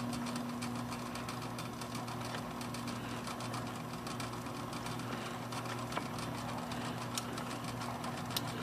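Smith Corona electric portable typewriter's motor running idle with a steady hum, with faint scattered clicks.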